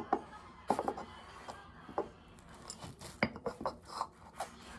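Knife cutting into a chocolate-glazed cake on a plate: irregular clicks and scrapes of the blade against the firm chocolate coating and the plate, as the coating resists being cut.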